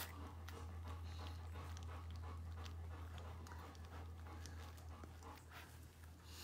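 A puppy panting softly, with scattered small clicks, over a steady low hum.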